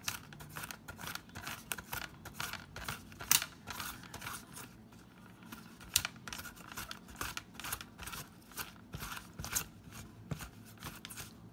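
A pickle being sliced on a mandoline slicer: a fast, uneven run of short cutting strokes as it is pushed back and forth across the blade, a few strokes a second.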